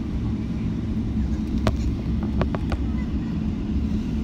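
Inside the cabin of a Boeing 777-300ER taxiing after landing: a steady low rumble from its GE90-115B engines at taxi idle and the rolling landing gear. A few light clicks come in quick succession around the middle.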